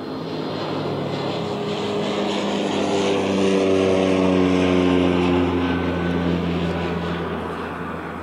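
Cessna 208B Grand Caravan's single Pratt & Whitney PT6A turboprop passing the microphone: the propeller drone swells to a peak about halfway through and then fades, its pitch dropping slightly as the aircraft goes by.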